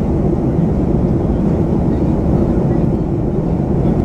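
Steady low cabin noise of a Boeing 737-500 in flight, heard inside the cabin from a window seat over the wing: its CFM56-3 turbofan engines and the rush of air over the fuselage, holding an even level and pitch throughout.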